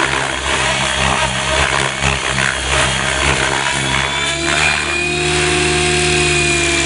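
Electric RC helicopter (Gaui X7) flying aerobatics at high head speed: the rotor blades and motor whine and buzz over rushing air noise. The sound is choppy and changing under the manoeuvres for the first few seconds, then settles into a steadier held whine about halfway through.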